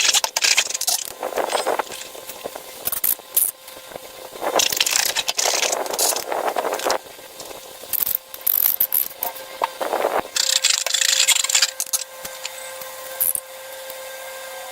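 Hands working slime, with irregular crackling, squishing and scraping in spells and many small clicks in between.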